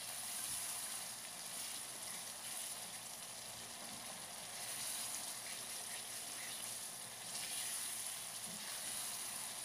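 Onion-tomato masala with spices sizzling steadily in oil in a frying pan while it is fried down (bhuna).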